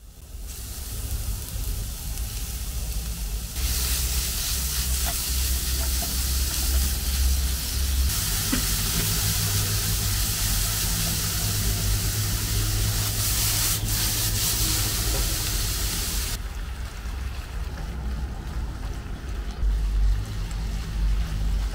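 Food sizzling as it fries in hot oil, a steady hiss over a low rumble, jumping abruptly in level several times.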